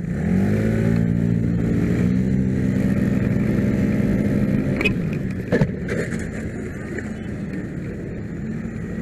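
Motor scooter engine revving up as it pulls away from a standstill, then running steadily under way. Two brief knocks come about five seconds in.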